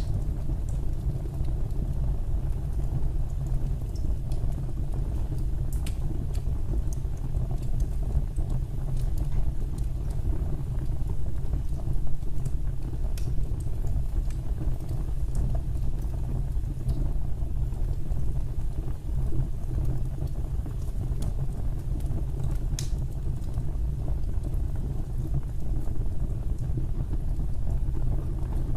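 Fire burning in a fireplace: a steady low rumble of flame with scattered sharp crackles and pops, a few louder ones standing out.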